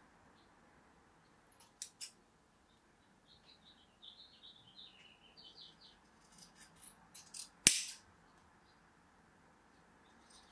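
Large metal fabric shears cutting through a thick bundle of cotton macrame cord: scattered snipping and crunching as the blades work through the strands, with one sharp click a little before eight seconds in.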